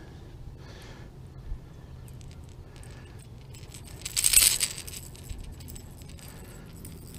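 A small fish hanging from a KVD Splash popper shakes, rattling the lure's metal treble hooks and split rings in one brief, loud jingle about four seconds in.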